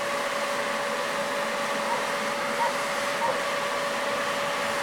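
Excavator's diesel engine running steadily, with a constant whine over it.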